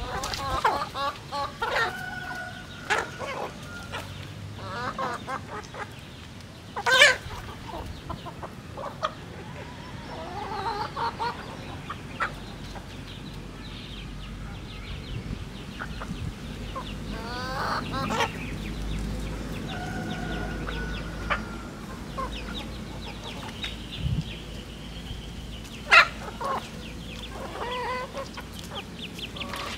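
A flock of domestic chickens clucking and chattering as they forage, short calls one after another. A few sudden sharp sounds stand out, the loudest near the end.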